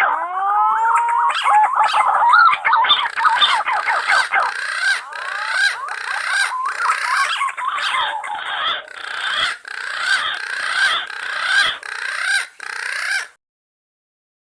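Green pigeons (punai) whistling in a dense run of overlapping, gliding, warbling calls that cuts off suddenly near the end.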